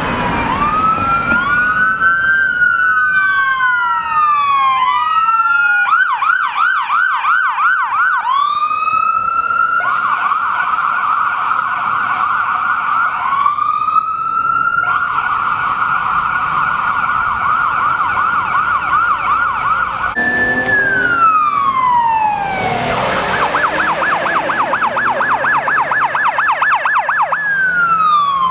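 Electronic siren of an AMR Ford Transit ambulance, switching between a slow rising-and-falling wail and a fast yelp. About twenty seconds in it gives way to a police car's siren: a falling wail, then a fast yelp, then another falling wail near the end.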